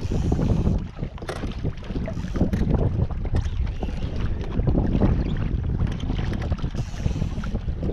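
Gusty wind buffeting the microphone, rising and falling in gusts, over choppy sea water slapping against a kayak's hull.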